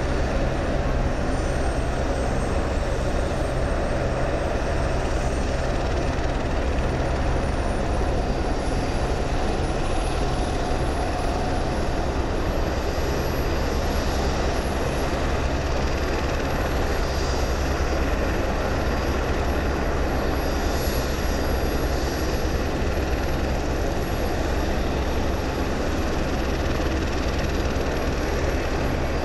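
Robinson R44 helicopter running on the ground at a steady idle, its six-cylinder piston engine and turning rotors making an even drone with a low hum. A faint high whine slowly rises in pitch over the first dozen seconds.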